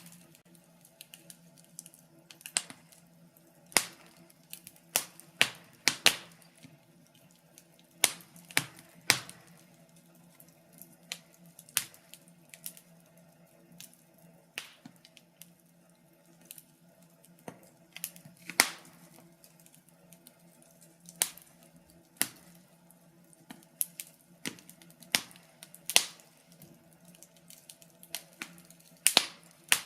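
Wood fire crackling: irregular sharp pops and snaps, a louder one every couple of seconds among fainter ticks, over a faint steady low hum.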